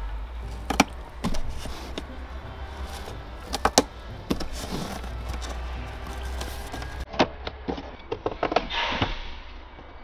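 Scissors cutting a corrugated cardboard box, the cardboard crunching, creaking and knocking in irregular clicks and thumps as it is cut and bent.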